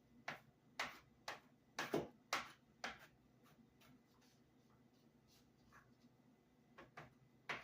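Kitchen knife chopping garlic on a cutting board: short sharp taps about two a second for the first three seconds, then a pause, then a few more taps near the end.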